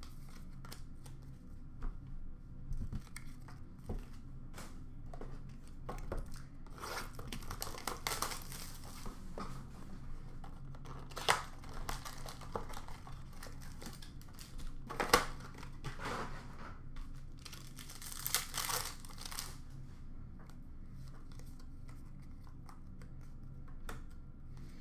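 Trading-card packaging being torn open and crinkled by hand, in several short tearing bursts among light clicks and shuffles of cards being handled.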